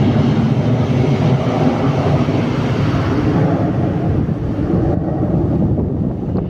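Twin-engine jet airliner flying overhead: a loud, steady, low jet rumble that thins a little over the last second or so.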